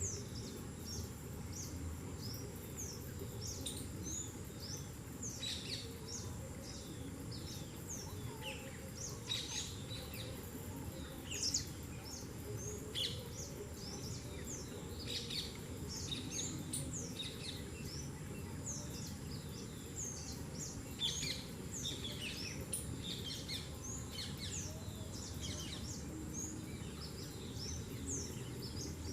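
Several birds chirping in many short, quick notes scattered throughout, over a steady low background noise.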